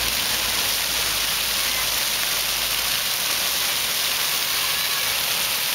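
Ground-level fountain jets spraying up and splashing onto wet pavement: a steady hiss of falling water.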